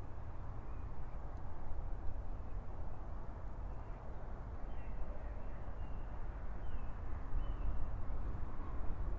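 Outdoor ambience: a steady low rumble, with several faint short bird calls in the second half.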